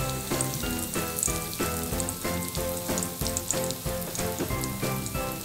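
Food frying in a hot pan, sizzling with scattered sharp crackles. Background music with a steady run of notes plays throughout.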